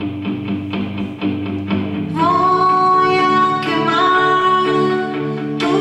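A song: a guitar strummed in an even rhythm, with a singing voice coming in about two seconds in and holding long notes.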